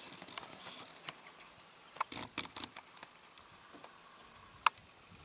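Roe buck cropping grass and stepping through it: faint, scattered crisp clicks and rustles, with a cluster about two seconds in and one sharp click near the end.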